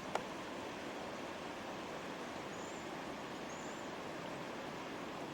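Steady rushing of a flood-swollen creek running very high, heard as an even hiss. A single sharp click comes just after the start.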